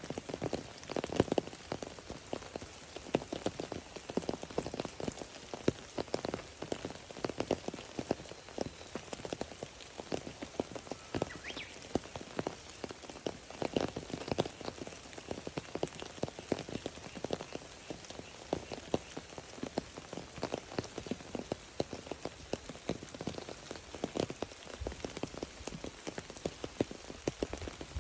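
Rain falling: a dense, irregular stream of drops striking a surface.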